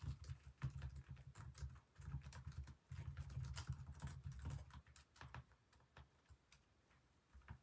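Faint typing on a computer keyboard: quick runs of key clicks with dull thuds for about five seconds, then only a few scattered clicks.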